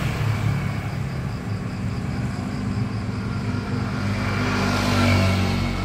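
Road traffic: motorcycle engines running and passing on the street, a steady engine hum that grows louder near the end.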